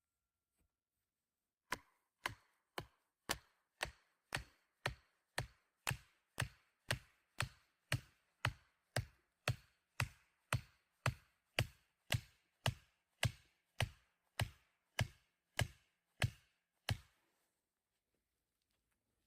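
Axe chopping wood: a steady run of about thirty sharp blows, roughly two a second, each a crisp knock with a short low thud. The blows start about two seconds in and stop a couple of seconds before the end.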